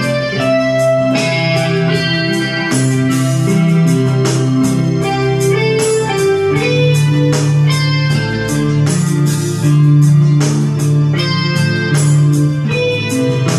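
Electronic arranger keyboard playing an instrumental song, a melody with chords over a bass line and a steady beat.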